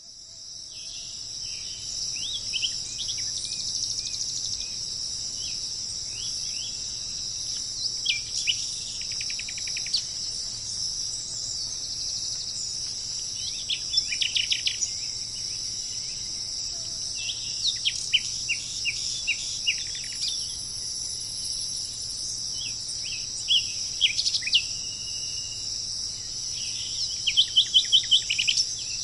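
Steady high-pitched insect chorus of crickets or cicadas, with songbirds calling over it in short chirps and quick runs of repeated notes, the loudest run near the end. The sound fades in at the start.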